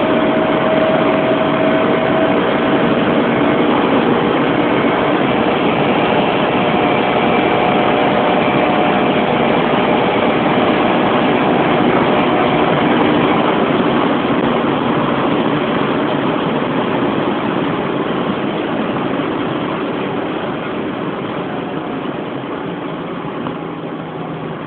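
Honda S2000 with a K&N air filter and a homemade exhaust, its engine running steadily amid a dense rush of noise that slowly drops in level over the second half.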